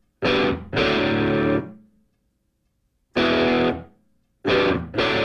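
Outro music: distorted electric guitar playing short chords with pauses between them.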